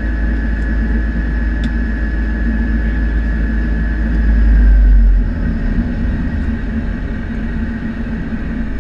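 Cessna 208B Caravan's Pratt & Whitney PT6A turboprop running on the ground, heard from inside the cockpit: a heavy propeller drone under a steady high turbine whine. About five seconds in, the drone swells and then drops off sharply, and the whine starts to slide down in pitch as power comes off.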